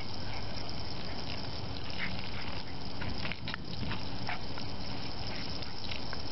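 Garden hose spraying a steady jet of water across the lawn, with short, scattered noises from a small dog biting and snapping at the stream.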